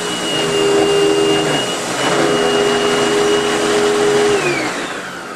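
Loud old upright vacuum cleaner running with a steady motor whine. About four seconds in it is unplugged at the wall, and the motor winds down with falling pitch.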